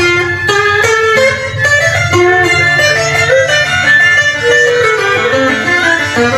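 Electric guitar playing a Vietnamese cải lương melody note by note, with many sliding and bent notes, over a two-string fiddle (đàn cò) playing along.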